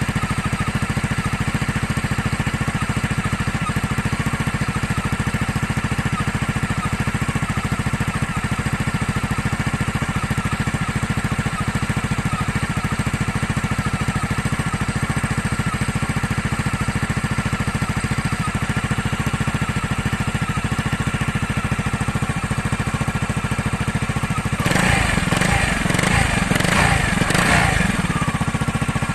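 Toyota Runner engine idling steadily, with the abnormal noise of a failing water pump. About 25 seconds in, a louder, rougher burst of noise lasts about three seconds.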